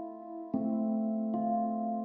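Background music: calm held tones, with a new note struck about every 0.8 seconds.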